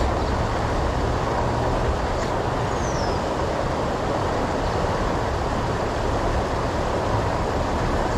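Steady rushing of water pouring over a river spillway.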